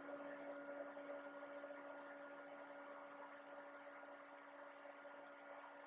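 Near silence: a faint, steady hum over low hiss.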